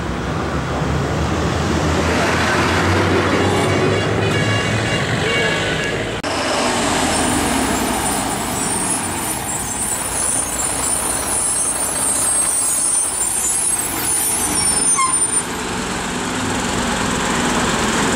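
Heavy goods trucks' diesel engines running as the trucks move slowly around a hairpin bend. The sound changes abruptly about six seconds in and again about fifteen seconds in.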